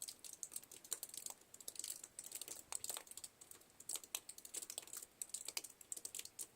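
Faint, dense, irregular crackling and ticking with no steady rhythm, which the listener takes for tree limbs crackling under the weight of heavy wet snow.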